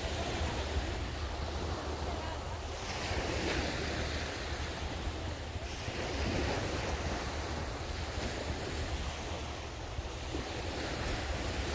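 Sea waves breaking and washing up a beach, swelling in and easing off, with a steady low rumble of wind on the microphone.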